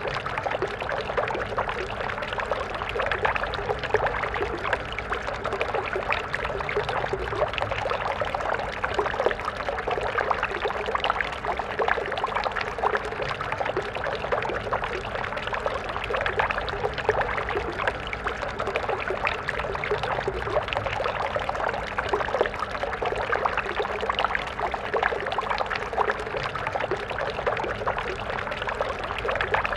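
Water of a small stream flowing and splashing over rocks in a steady, unbroken babble.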